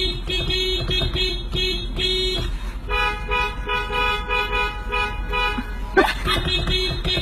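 Novelty electronic car horn sounding a fast run of rhythmic toots, switching to a higher-pitched pattern about three seconds in and back again after a sharp crack about six seconds in.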